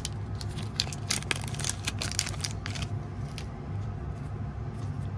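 Foil wrapper of a hockey card pack crinkling and crackling as it is handled and the cards are pulled out, a dense run of crackles that thins out about three seconds in. A steady low hum runs underneath.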